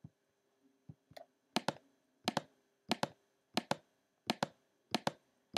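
Computer mouse button clicking at an even pace, each click a quick press-and-release pair, about every two-thirds of a second from a second and a half in, with a few fainter single clicks before: each click places a point of a polygonal lasso selection.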